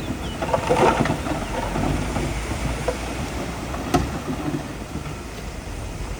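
Komatsu bulldozer's diesel engine running steadily with a low rumble, with a sharp clank about four seconds in.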